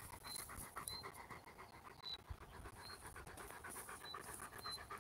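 German Shepherd dog panting, faint and quick. A short high peep repeats about once a second behind it.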